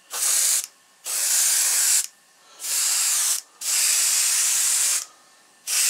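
Airbrush spraying white paint in five short bursts of hissing air and paint, with brief pauses between them.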